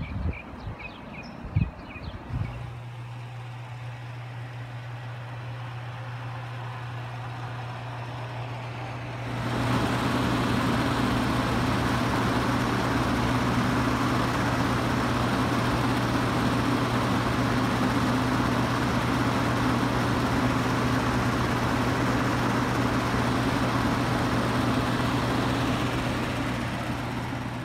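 Cool Attic CX1500UPS gable-mount attic fan running: a steady electric motor hum with a rush of moving air. The sound becomes much louder about nine seconds in, then stays steady. A few knocks and wind buffets at the start.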